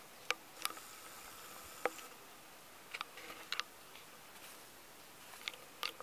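Chickens foraging in dry leaf litter: scattered short, sharp crackles and clicks, a few in quick pairs, over a faint steady hiss. There is no crowing.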